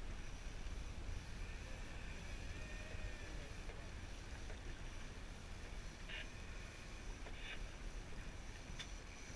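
Steady low rumble of a small fishing boat out at sea, with two short hisses around six and seven seconds in and a sharp click near the end.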